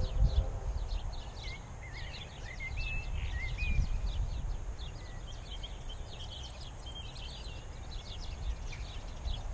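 Small birds singing and chirping in short repeated calls, with a few whistled notes early on and a fast high trill about halfway through, over a low wind rumble on the microphone.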